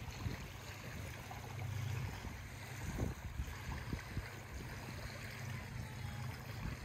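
Small waves lapping on a gravel shore, under a low steady hum of distant motorboat engines, with a few soft knocks about three seconds in.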